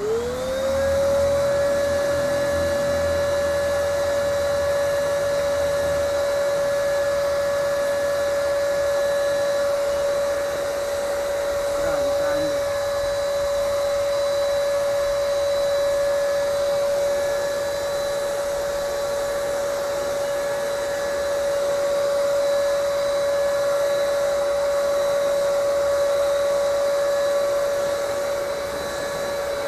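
Handheld electric paint spray gun switched on, its motor spinning up within about a second to a steady high whine and running on while spraying paint.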